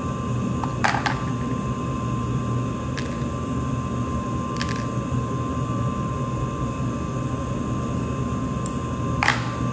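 Dental equipment running with a steady low hum and a faint steady high tone, broken by a few sharp clicks, the loudest near the end.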